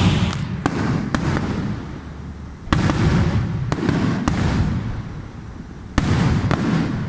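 Aerial firework shells bursting: a string of sharp bangs, each trailing off in a rumbling echo, in clusters near the start, around three to four seconds in and near the end.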